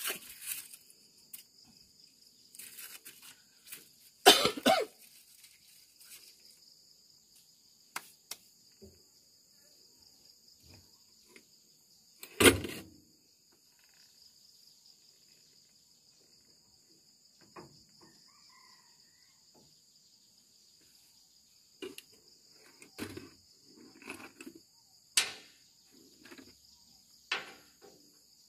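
Steady high-pitched chirring of insects, with scattered knocks and clinks of hand tools and metal fittings being handled in an excavator's hydraulic valve compartment. The loudest is a single thud about twelve seconds in, and a run of clicks and knocks comes near the end.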